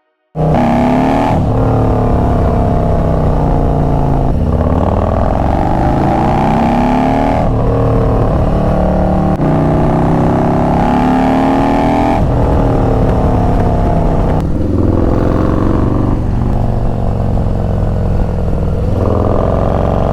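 Motorcycle engine accelerating hard through the gears, its pitch climbing and then dropping at each upshift, about six shifts in a row.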